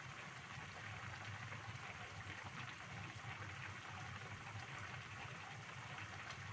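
Chicken-feet soup simmering in a wok, an even fine crackle of bubbling, with a low steady hum underneath.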